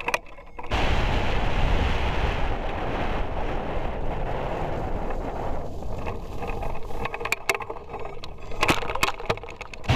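Wind rushing and buffeting on the microphone of a camera mounted on a hang glider's wing during a foot-launched takeoff run. It starts suddenly under a second in, and a few sharp clicks and knocks come near the end.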